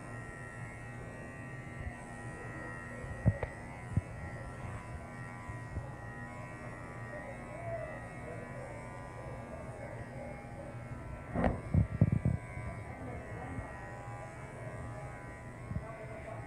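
Wahl electric dog clipper running with a steady hum as it clips a toy poodle's body coat. A couple of sharp knocks come about three and four seconds in, and a louder cluster of knocks about eleven to twelve seconds in.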